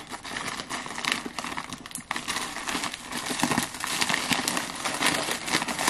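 Plastic poly mailer bag crinkling and crackling as it is handled and pulled open by hand, a busy run of crackles with no pause.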